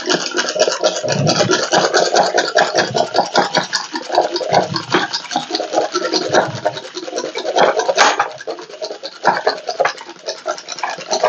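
Push-down spinning hand whisk being pumped up and down in a plastic bowl, beating raw eggs: a fast, steady run of clicks and scrapes with the whisk churning the liquid.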